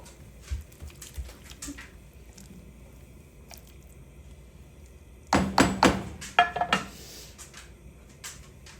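Kitchen clatter: a few light clicks and taps, then about five seconds in a quick burst of knocks and clanks with brief ringing, like pots, lids or utensils being handled.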